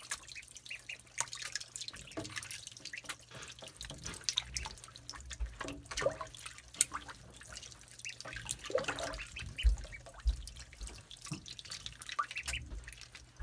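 Ducklings swimming and diving in a tub of water: small irregular splashes and drips, over a steady low hum.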